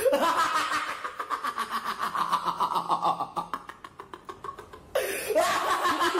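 Rapid, high-pitched snickering laughter in two bouts, dropping off a little past the middle and starting again about five seconds in.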